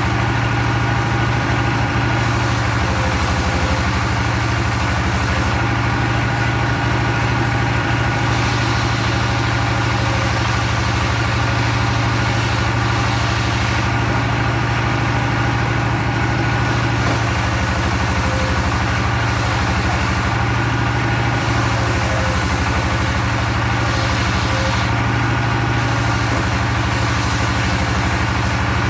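Log sawmill machinery running steadily: an engine humming at a constant speed with a strong low drone, and no pauses.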